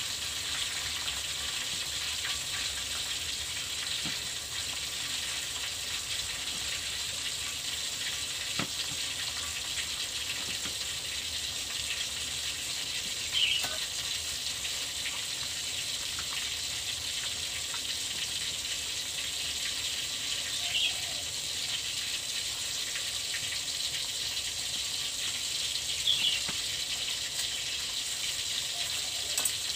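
Steady hiss from a wok heating over a wood-fired stove, with a few short high chirps spaced several seconds apart.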